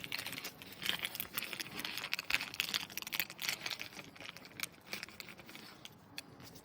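Small metal lock parts clicking and rattling as they are handled, with some light rustling, busiest through the first five seconds and thinning out near the end.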